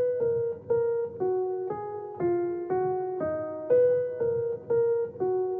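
Background music: a slow piano melody, single notes struck about twice a second and left to ring out.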